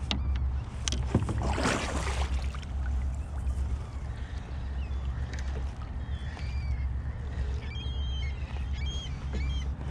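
Steady low wind rumble on the microphone, with a splash of water about a second and a half in. From about six seconds on, seabirds give many short, high calls.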